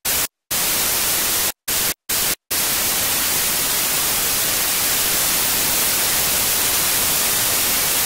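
Analogue TV static hiss. It cuts out and back in abruptly several times in the first couple of seconds, then runs on steadily.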